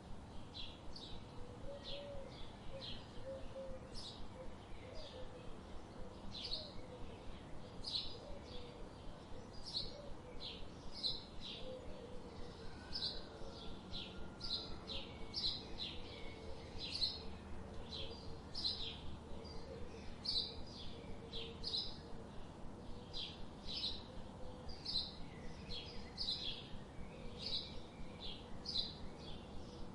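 Birds chirping: a steady run of short, high chirps, about two a second.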